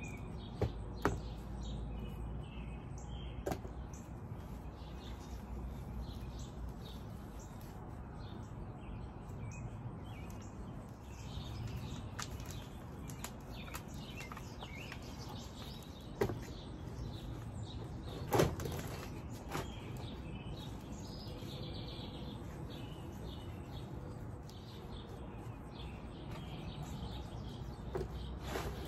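Outdoor background with birds chirping, broken by scattered sharp knocks and rustles as plastic nursery pots and plants are handled and set down during planting. The loudest knock comes about eighteen seconds in.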